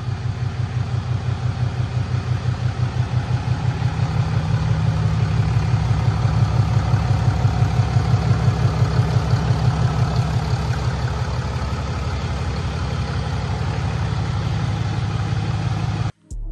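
Ram 2500's 6.7-litre Cummins inline-six turbodiesel idling steadily, with an even pulsing beat. It cuts off abruptly just before the end.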